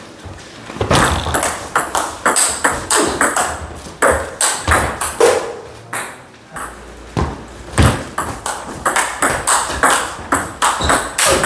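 Table tennis rallies: the ball clicking rapidly back and forth off paddles and table. There is a short lull about halfway through between points before the next rally starts.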